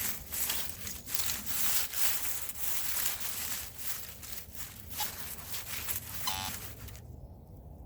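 Irregular rustling and crunching of dry leaf litter and forest ground. A brief buzzing tone sounds about six seconds in.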